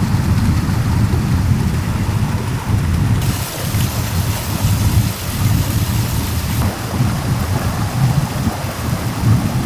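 Stream water rushing and splashing over boulders in small cascades: a steady, deep rumble with a hiss of spray. The hiss grows brighter from about three seconds in until nearly seven seconds.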